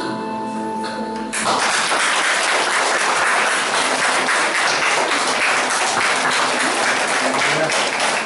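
An audience applauding, starting suddenly about a second and a half in and going on steadily. Before it, background music holds a sustained note.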